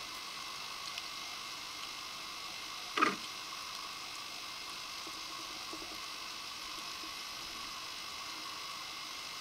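Steady underwater hiss with a faint hum, recorded by a submerged camera. About three seconds in there is a single short, sharp knock-like sound, the loudest thing heard.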